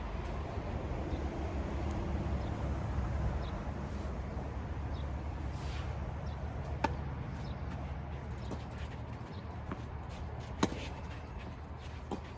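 Tennis ball struck by rackets during play: two sharp hits about four seconds apart, the first about seven seconds in, with a few fainter ticks, over a steady low rumble.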